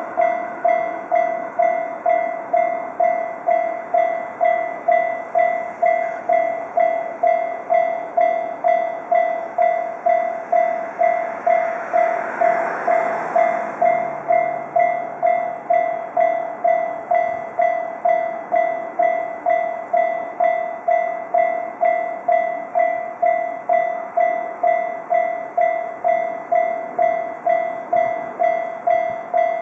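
Japanese railway level-crossing warning bell ringing, one electronic tone repeating evenly about twice a second. A brief rush of noise swells and fades about twelve seconds in.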